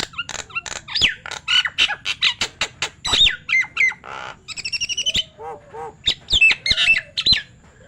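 Nias hill myna calling: a rapid, loud run of sharp clicks, harsh squawks and whistled notes that slide up and down in pitch, stopping shortly before the end.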